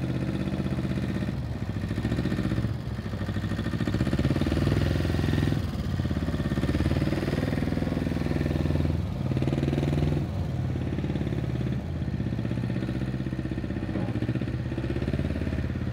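Small Zettelmeyer wheel loader's two-stroke engine puttering as the loader drives, its revs dropping and picking up again several times.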